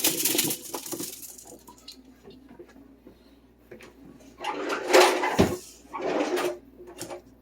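Cut raw vegetables being tipped from a mixing pan into a baking pan, tumbling and rattling against the metal. It happens in bursts, at the start and again about four and a half to six and a half seconds in, with a sharp knock of the pan in between.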